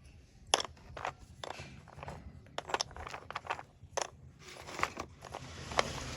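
Slate pencil crunching, with a rapid, irregular run of sharp cracks and clicks.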